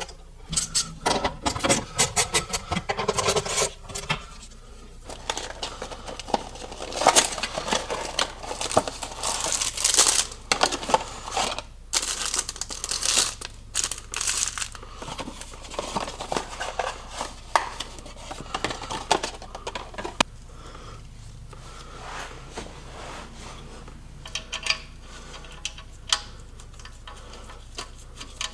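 Irregular rustling, crinkling and light clattering of objects being handled, busiest in the first half and sparser later.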